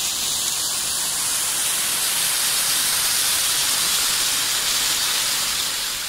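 Small waterfall splashing down between rocks into a pool: a steady rushing hiss of falling water that fades near the end.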